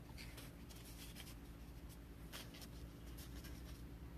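Faint rustle and scrape of trading cards being slid and flipped by hand, a few soft touches spread through the moment.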